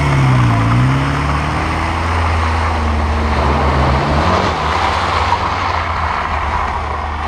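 Suzuki Samurai engine driving by under throttle, its pitch dipping in the first second and shifting again around four seconds in, while the tyres splash through mud puddles.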